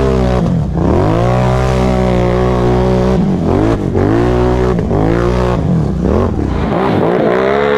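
ATV engine revving hard at full throttle as the quad drives through deep muddy water, its pitch rising and falling about five times as the throttle is worked and the wheels spin. Water and mud splash around it.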